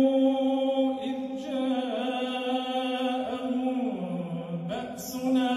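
A man's solo voice reciting the Quran in a melodic, drawn-out chant, holding long steady notes. The pitch steps down about four seconds in and rises again near the end.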